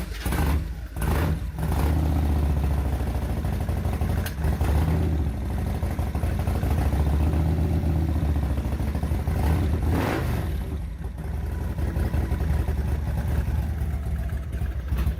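Revtech 100 cubic inch V-twin motorcycle engine, compression releases pressed and carb primed after sitting for weeks, cranks briefly and catches within about two seconds, then runs at a loud, lumpy idle. It is revved up and back down twice, around four and ten seconds in.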